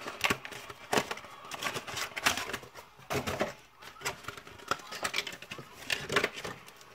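Foil Yu-Gi-Oh booster pack wrapper crinkling and being torn open by hand, a run of irregular crackles and sharp clicks.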